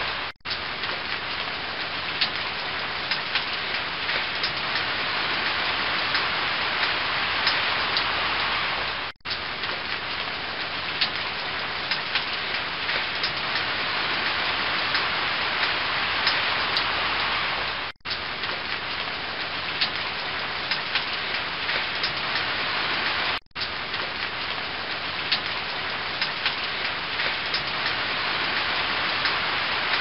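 Waterfall rushing steadily, a dense hiss of falling and splashing water with small crackling droplet ticks. The sound cuts out for a split second four times, about every six to nine seconds, where the recording is looped.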